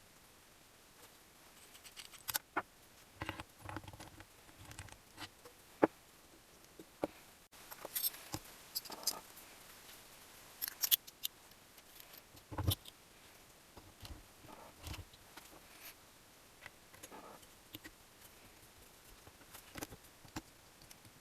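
Hand tools and small metal engine parts being handled during engine assembly: irregular clicks, taps and clinks, with a heavier knock a little past halfway.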